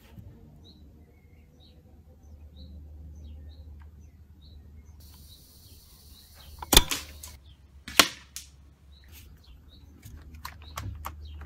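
APS M50 CO2-powered bolt-action airsoft sniper rifle firing: a sharp crack of released gas about two-thirds of the way in. A second sharp crack follows about a second later, then a few light clicks near the end.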